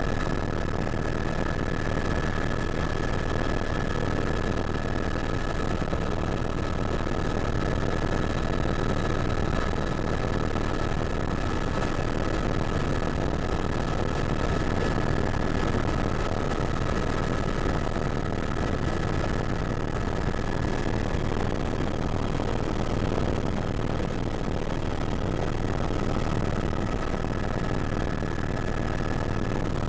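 Helicopter running steadily: a constant drone of turbine and rotor with a steady high whine over it.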